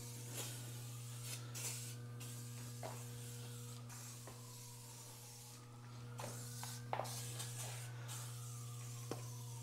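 Aerosol can of moisture-displacing, rust-inhibiting lubricant spraying in several short hissing bursts, over a steady low electrical hum.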